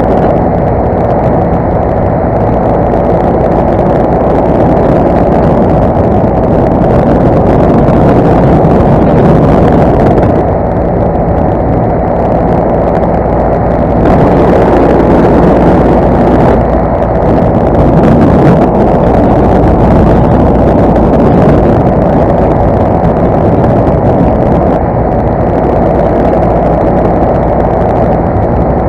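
Paramotor's two-stroke engine and propeller running steadily in flight: a loud, continuous drone with slight swells in level.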